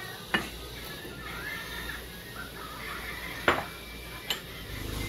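A utensil knocking sharply against a metal saucepan three times as berries are tipped into simmering sugar syrup; the middle knock is the loudest.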